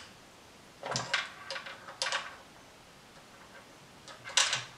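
Small plastic Playmobil parts clicking and rattling as they are handled and pressed onto the toy car's roof: a cluster of clicks about a second in and another near the end.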